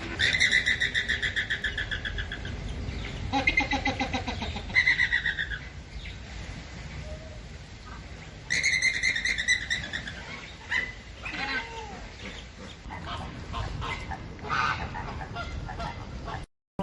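Birds calling in bursts of fast, rapidly repeated chirps, three longer runs and then scattered shorter calls.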